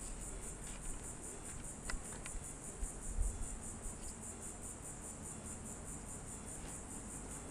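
Insect chorus in the woods: a steady high-pitched buzz with a rapid, even pulse. A few faint clicks come about two seconds in and again around four seconds.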